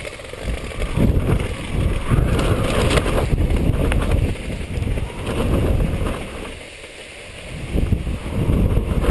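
Wind rushing and buffeting over a camera microphone carried aloft on a kite, in uneven gusts that ease off for a moment about seven seconds in and then pick up again.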